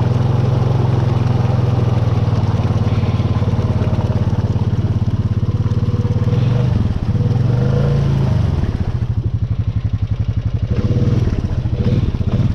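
Honda Rubicon ATV's single-cylinder engine running at steady high revs while the quad is stuck in thick clay mud, its tires slipping. About seven seconds in the revs dip and swell again, then fall to a slower, lumpy chug, with a brief rev near the end.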